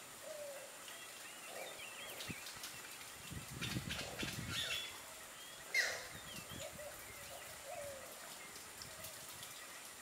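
Scattered bird chirps and short calls, the clearest a quick rising chirp a little past halfway. There are a few soft crackles around the middle and a faint steady high-pitched tone underneath. The howler monkey is not howling.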